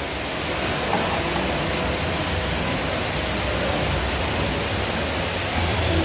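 Steady rushing hiss of flowing water from an underground cave stream.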